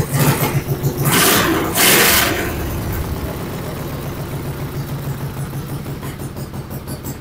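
Modified racing lawn mower engine with a tuned exhaust running in quick pulses. It is revved twice in short blips, about a second in and at two seconds, and then settles back to steady fast running.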